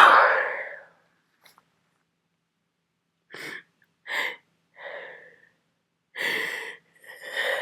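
The end of a head-cold sneeze fading out in the first second, then, after a short pause, about five short breathy gasping inhalations as the next sneeze builds.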